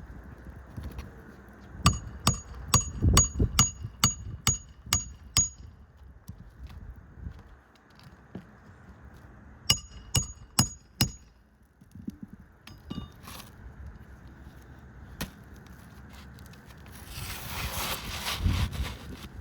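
Hammer driving roofing nails into an asphalt shingle: a quick run of about nine ringing metal strikes, a pause, then a second run of five strikes. A rustling, scraping noise follows near the end.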